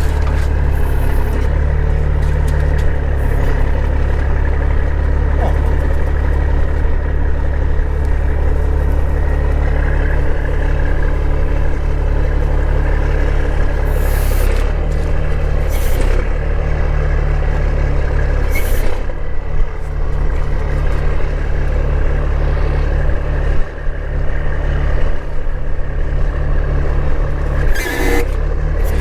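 Diesel truck engine running steadily as the truck dumps a load of wet distillers grains, with a few short hisses of air partway through and near the end.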